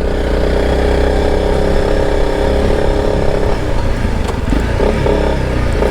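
Honda CRF motorcycle engine running steadily while riding, its note wavering and shifting from about three and a half seconds in.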